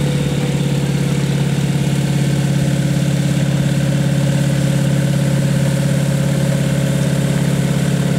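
Super Petrel amphibious biplane's engine and propeller running steadily at low power as the aircraft taxis, an even drone that holds one pitch.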